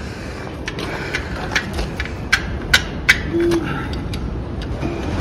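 Sharp metal clicks of a wrench working the nuts on a John Deere 3010's oil filter housing cover, about five clicks over a couple of seconds, against steady background noise.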